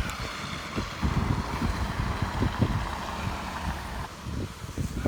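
Gusty wind buffeting the microphone in irregular thumps, over a steady hiss of street traffic.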